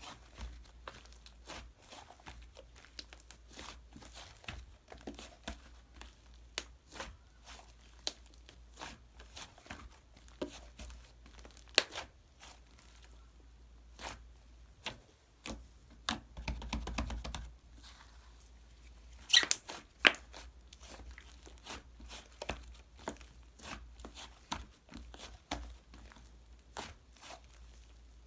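Fluffy clay slime being pressed, squeezed and pulled apart by hand, making dense, irregular crackling clicks and small pops, with a few louder snaps.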